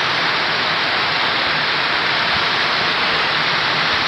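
Heavy rain downpour falling steadily: a dense, even hiss.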